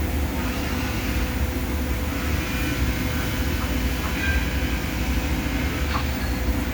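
Industrial machinery running with a steady low rumble and a constant hum, a few faint short tones and a couple of brief ticks about six seconds in.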